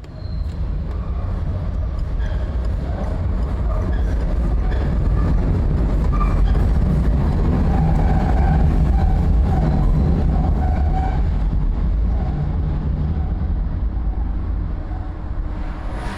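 Rail train rumbling past, growing to its loudest about halfway through and easing off toward the end.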